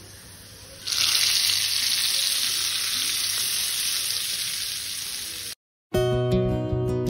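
Hot tadka oil with chopped garlic and dried red chillies sizzling as it hits the cooked dal. It starts suddenly about a second in, fades slowly, then cuts off abruptly.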